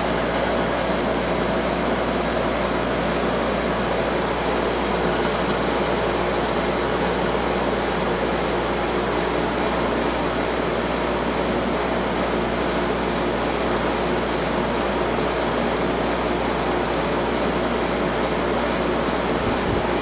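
Fedders-built Maytag 8,000 BTU window air conditioner running steadily with its compressor and fan on: an even rush of fan air over a constant hum. The unit is cooling well, putting out air around 38 degrees.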